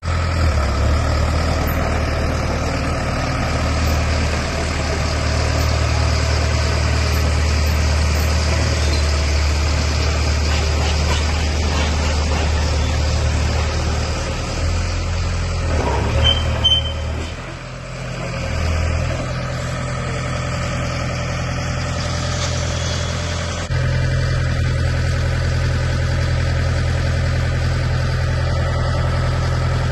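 Engine of a BOTEC-Scheitza RDBS drilling rig running with a steady low hum. Its note shifts and briefly drops about halfway through, then steps up to a higher, steady speed a little past two-thirds of the way.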